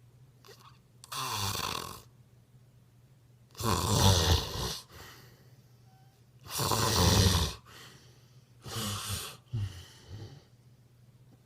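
Snoring: four loud snores, one every two and a half to three seconds, then a softer one near the end.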